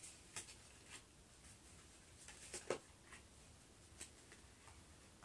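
Near silence broken by a few faint, scattered taps and rustles of tarot cards being handled and pulled from the deck.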